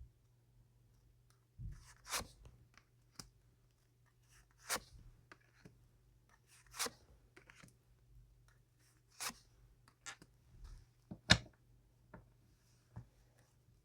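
Tarot cards being handled on a table: a short swish or snap about every two seconds as cards are drawn or turned, the loudest near the end, with small taps and rustles in between and a faint steady hum underneath.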